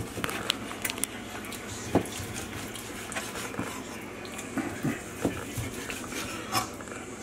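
Chef's knife slicing grilled flap steak on a plastic cutting board: irregular knocks and taps of the blade on the board, the loudest about two seconds in.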